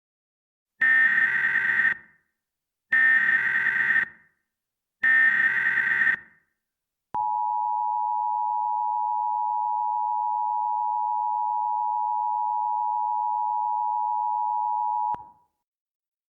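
Emergency Alert System SAME header: three one-second bursts of data tones, followed by the EAS two-tone attention signal, a steady dual tone held for about eight seconds that cuts off sharply. It is the sequence that marks the start of a new emergency alert message.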